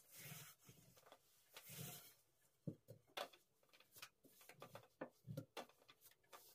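Faint sounds of a long thin wooden rolling pin wrapped in thin phyllo dough sheets being rolled and pushed across a floured wooden table: soft swishes of dough rubbing on wood, then a run of light knocks and taps from about three seconds in as the pin and hands work the sheet.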